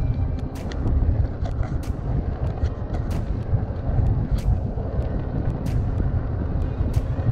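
Wind buffeting the microphone with a steady low rumble while riding an Ariel Rider Grizzly e-bike along the road. Scattered sharp clicks sound throughout.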